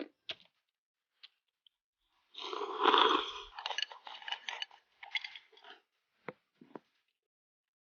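Close-up eating sounds: a loud noisy burst about two and a half seconds in, then crackly chewing, and two sharp clicks near the end.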